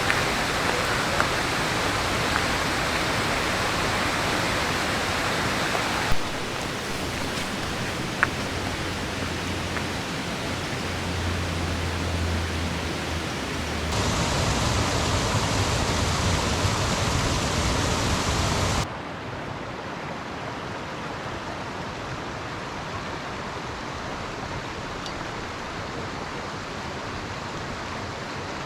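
Steady rushing of a mountain stream in a gorge, an even hiss of running water that changes abruptly in level and tone three times, with a couple of small knocks.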